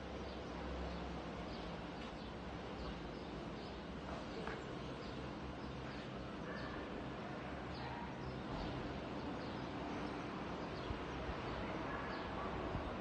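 Steady outdoor background noise with small birds chirping: short, high chirps every second or so.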